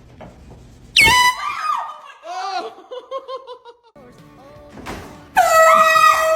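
A sudden loud yell about a second in, followed by laughter. Near the end a loud air horn blast starts and holds one steady note, with someone yelling over it.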